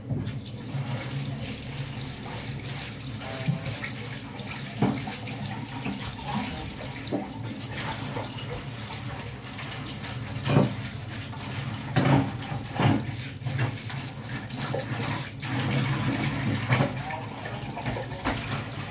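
Kitchen tap running into a sink while dishes are washed, with knocks and clinks of crockery now and then.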